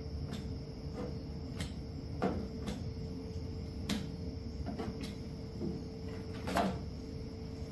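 Irregular light knocks and scrapes of hand tools spreading fiberglass filler into gaps in a truck bed, the strongest about three quarters of the way through.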